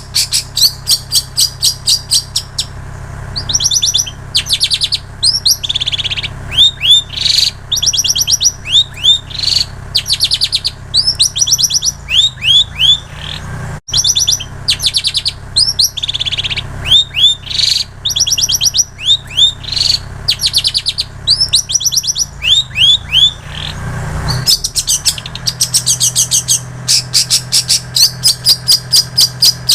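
Long-tailed shrike (cendet) singing continuously, a fast, varied song of rapid chirping trills and sharp down-slurred whistles that mimics plain prinia and canary. A low steady hum runs underneath and breaks off briefly about halfway through.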